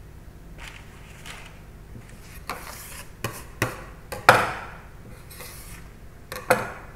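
Handling sounds on a kitchen bench while bread dough is shaped: a couple of soft rubbing sounds, then a series of sharp knocks, the loudest a little past halfway, dying away briefly after it.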